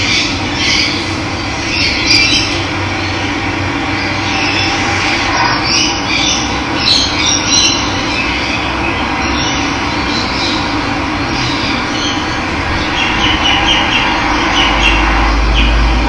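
Steady rush of running water, with birds chirping and calling over it throughout; a low rumble joins near the end.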